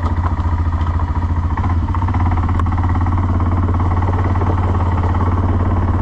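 CFMoto CForce 600 ATV's single-cylinder engine running steadily as the quad pulls away slowly and turns. The engine note shifts slightly about two seconds in.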